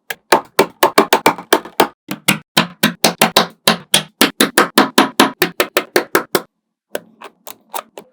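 Small magnetic balls snapping together in a quick run of sharp clicks, about three or four a second, which turns into a few fainter, sparser clicks after about six and a half seconds.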